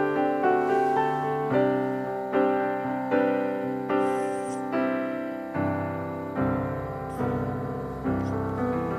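Background piano music: notes and chords are struck at a slow, even pace, about one every 0.8 seconds, each fading before the next.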